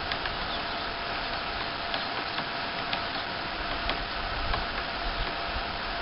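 Woodpecker pecking at a wooden utility-pole crossarm: single sharp taps, roughly one a second and unevenly spaced, not a drumming roll, over a steady hiss.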